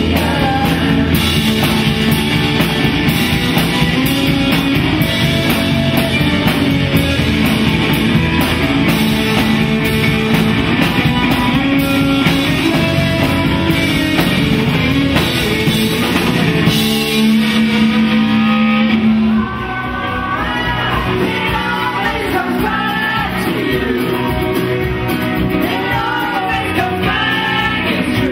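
Rock band playing live with a female lead singer, electric guitar, bass guitar and drum kit. About nineteen seconds in the level drops suddenly, and the singing then carries over a lighter backing.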